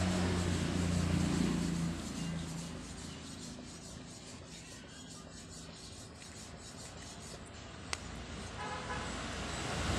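A low steady motor hum that fades away after about two seconds, then a single sharp plastic click about eight seconds in as the cover is snapped onto the angle grinder's switch.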